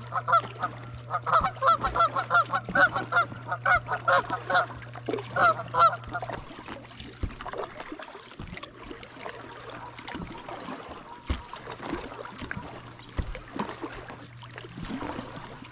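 A flock of geese honking, many loud calls in quick succession for about the first six seconds, then falling silent.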